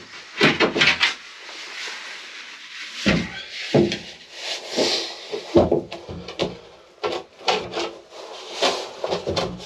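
Plywood pieces being handled and fitted: irregular wooden knocks, a few of them heavier, with rubbing and scraping between.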